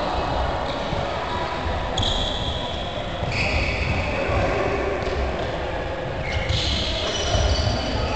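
Handballs thudding and bouncing on a wooden sports-hall floor over a steady low rumble of hall noise, with some sustained high tones coming and going.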